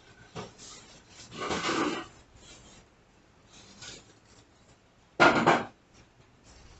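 A crossbow bolt being worked loose from a solid wooden door: wood scraping and rubbing in two bursts, the second, about five seconds in, shorter and louder.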